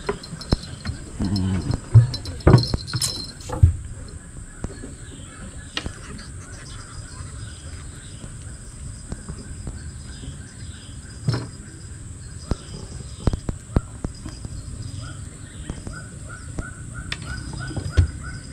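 Birds calling over and over in the background, short falling notes repeated in runs, over a steady high insect drone. Occasional sharp knocks and taps as fishing tackle is handled on a wooden deck, the loudest a few seconds in.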